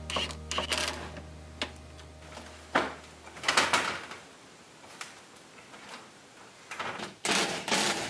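Scattered knocks and clatter, with the loudest knocks about three seconds in and a cluster near the end, over a low hum that fades out by about halfway.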